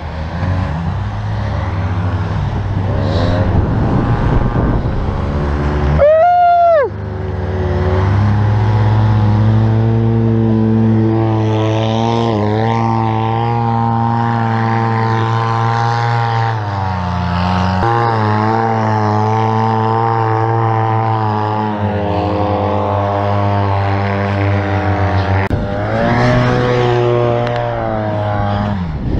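Side-by-side UTV engines running hard, the engine note rising and falling again and again as the throttle comes on and off. About six seconds in there is one short, sharp rev.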